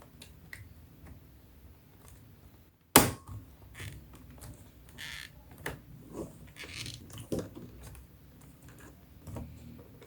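Laptop battery being fitted back into the laptop: one sharp click about three seconds in, then lighter clicks and handling rustles.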